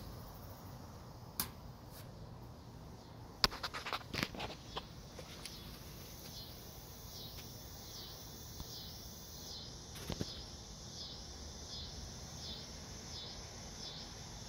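High-pitched chirping that repeats steadily, about three chirps every two seconds, over faint outdoor background noise. A short cluster of sharp clicks and taps comes about four seconds in.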